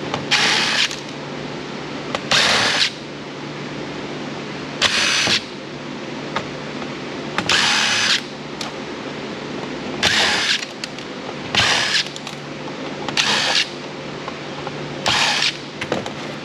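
Cordless power driver spinning out screws from an iRobot Roomba's plastic housing in eight short bursts, each under a second, a couple of seconds apart.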